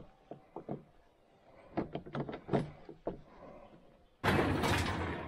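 Scattered light clicks and knocks from hands working on a vintage snowmobile's cowl. About four seconds in comes a loud, sudden rush of noise that lasts over a second.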